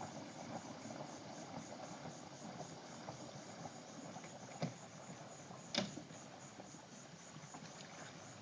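Faint crickets chirping over a low, steady rustle of water and the boat, with two sharp knocks, one about four and a half seconds in and a louder one about a second later.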